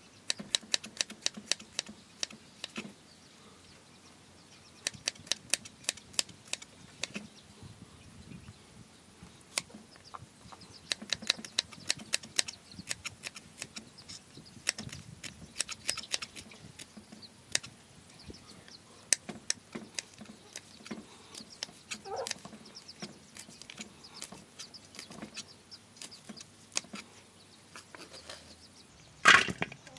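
Kitchen knife chopping on a round end-grain wooden chopping block: runs of quick, sharp taps with short pauses between, as lemongrass, garlic and shallots are sliced. Near the end a louder brief scrape as the chopped pieces are swept up onto the blade.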